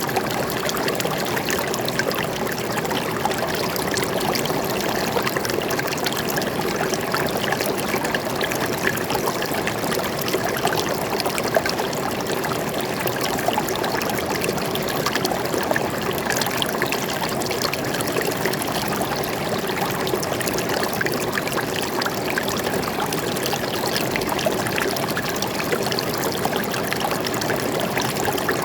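Forest stream flowing and trickling in a steady, unbroken rush of water.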